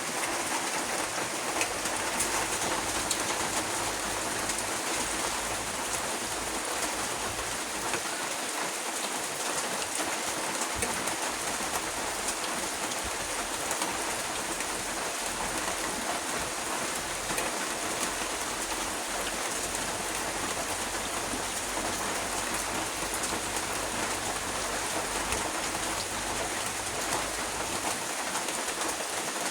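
Steady rain falling, an even hiss of drops that neither builds nor fades.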